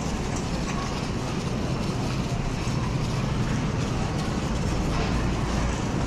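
Loaded shopping cart rolling over a hard store floor: a steady low rumble from its wheels over the store's background noise.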